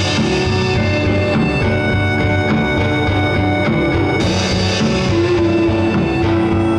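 A small rock band playing live: electric guitar over a drum kit with cymbals, with no singing. A cymbal wash comes in about four seconds in, and a long note is held from about five seconds in.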